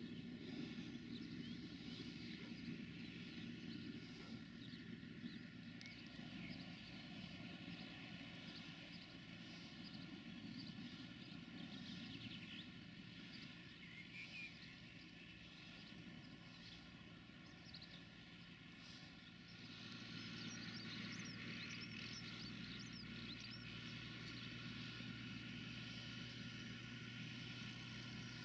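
Faint, steady drone of tractor engines with many short bird chirps over it; about twenty seconds in, a lower, even hum sets in and the drone grows slightly louder.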